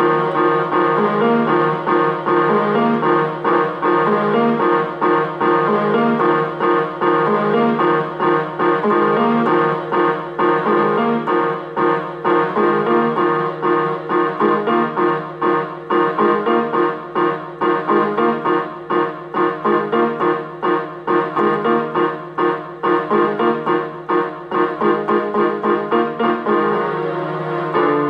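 Keyboard music with a piano sound: a fast, repeating figure of notes over a steady low note, changing near the end.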